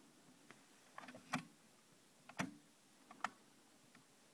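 A few faint, separate clicks and knocks of handling, the loudest about a second and a half in, with others near the middle and toward the end.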